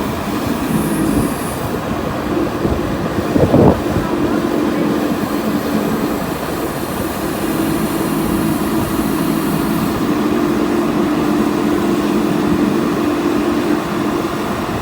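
JCB backhoe loader's diesel engine running steadily, with a short loud knock about three and a half seconds in.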